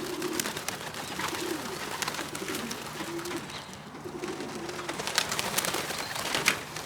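Young racing pigeons cooing with low, repeated calls, with scattered sharp taps and clicks of feet and wings around the loft.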